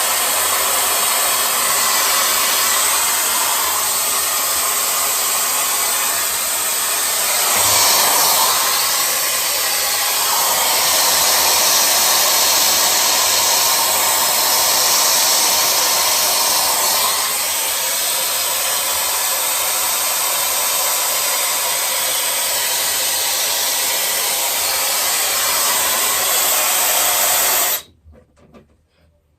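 Tessa Air Stick hot-air styler blowing a steady rush of air, switched off abruptly near the end.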